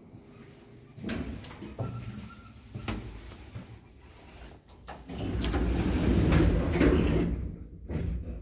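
ELM elevator car's automatic sliding doors closing, the door operator running for about two and a half seconds and ending in a knock as the doors shut, after a few short clicks.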